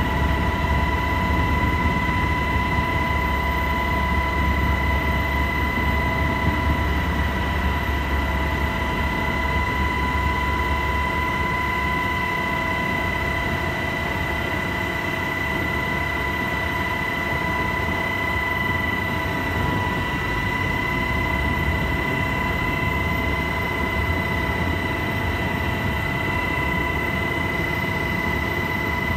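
UH-60 Black Hawk helicopter heard from inside the cabin: a steady high turbine whine over a deep rotor and engine rumble. The rumble eases about eleven seconds in while the whine holds.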